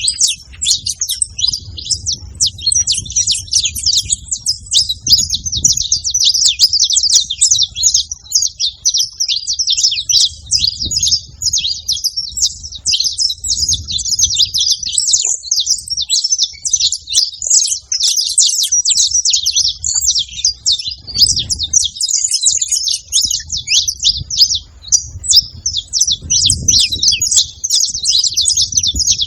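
Saffron finches chirping together in a dense, unbroken stream of short, high calls, with an intermittent low rumble underneath.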